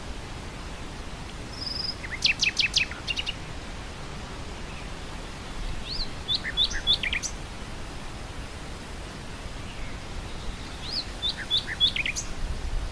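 Nightingale singing three short phrases of quick, sharp notes, over a steady rush of wind through grass.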